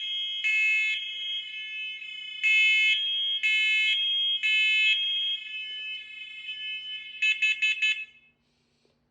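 First Alert SC7010B hardwired smoke and carbon monoxide alarm sounding its self-test. It gives the three-beep smoke pattern: half-second beeps in threes with a pause between groups. About seven seconds in it gives four quick beeps, the carbon monoxide pattern, and it stops a second later.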